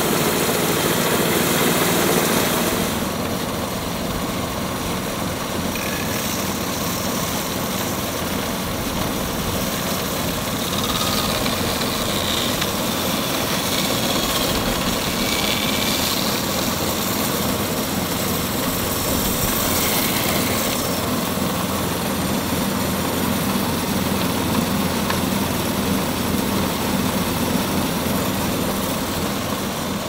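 Small single-cylinder gasoline engine on a homemade bandsaw mill running steadily. It drops slightly in level about three seconds in, then holds steady.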